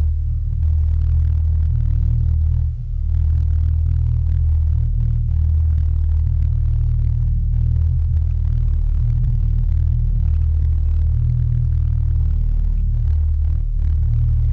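Steady low rumble with an even drone, picked up underwater by a GoPro in its waterproof housing as it is towed on a downrigger cannonball behind a trolling boat.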